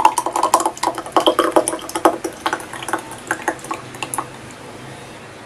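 Thick fishball sauce poured from a pan into a glass, with a quick run of wet splashes and splats that stops about four seconds in.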